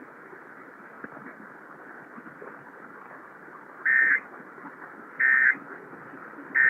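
Emergency Alert System end-of-message data tones: three short bursts of digital data signal about a second and a half apart, marking the end of the required monthly test. They follow a few seconds of steady low radio hiss.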